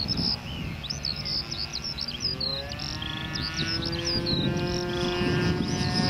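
Engine of a Seagull Extra 300S radio-controlled model plane with an O.S. Max engine droning in flight, its tone rising slightly and growing louder from about two seconds in as it comes closer. Small birds chirp repeatedly throughout.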